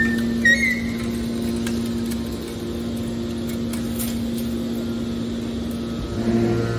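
Hydraulic waste metal baler's power unit running with a steady hum, with a brief squeal and a few clicks about half a second in and a deeper hum joining near the end.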